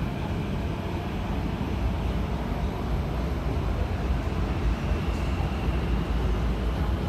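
Steady low rumble of a CT251 metro train running in the underground station's tunnel, with a faint high whine coming in about five seconds in.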